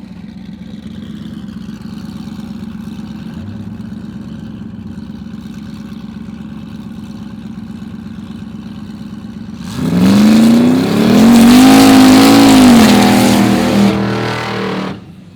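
Drag car engine running at a steady drone for about ten seconds. Then it goes to full throttle, suddenly much louder, the pitch climbing, wavering and easing off over about five seconds before dropping away near the end.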